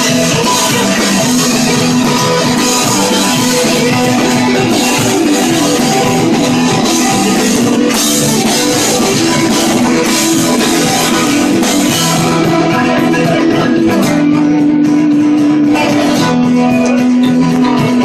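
Live rock and roll band playing an instrumental passage: acoustic and electric guitars over a drum kit, loud. About two-thirds of the way through the drums and cymbals thin out, leaving held guitar notes, and the full band comes back in near the end.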